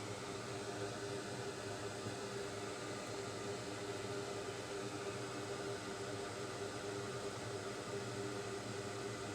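A small electric fan running steadily: an even hiss with a low, constant hum and no change from start to end.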